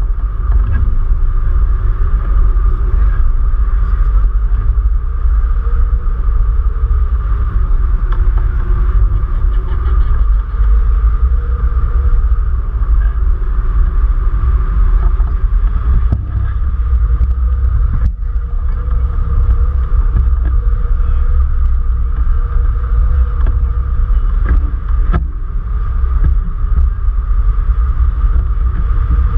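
Airflow buffeting a camera mounted on a hang glider's wing during flight: a loud, steady low rumble with a steady higher whistling tone running through it.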